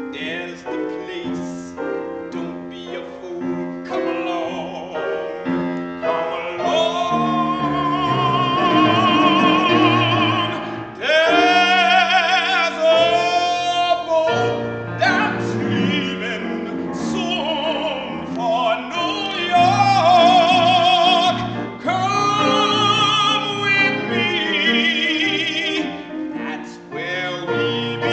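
Classical tenor singing with vibrato over piano accompaniment. The piano plays chords at first, and the voice comes in strongly about six seconds in.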